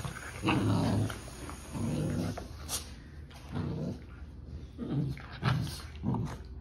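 Two Rottweiler and German Shepherd puppies growling in short rough bursts, about six times, as they play-fight: rough sibling play, not real aggression.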